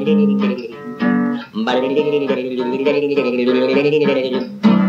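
Acoustic guitar strumming a jazz tune on a home tape recording made on an old bakelite tape recorder. A wavering held melody line sounds over the chords for a couple of seconds in the middle.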